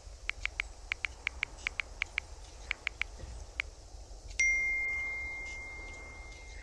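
Smartphone keyboard taps, about fifteen quick clicks, then a single message-notification ding about four seconds in that rings out and fades slowly, signalling an incoming text.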